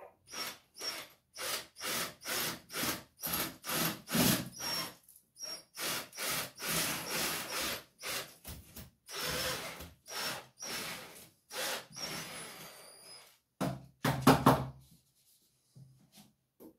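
A hand-held tool working on the wall in repeated short rasping strokes, about two a second, then a few louder knocks about fourteen seconds in.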